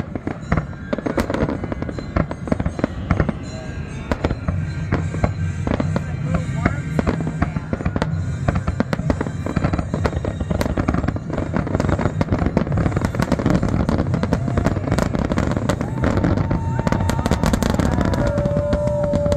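Fireworks display: aerial shells bursting one after another with crackling, the bangs coming thicker and louder toward the end as the barrage builds.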